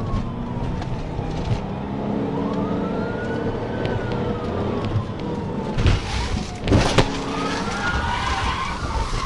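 Police car siren in a slow wail, rising and falling, over the patrol car's engine and road noise during a pursuit. A few loud knocks come about six and seven seconds in.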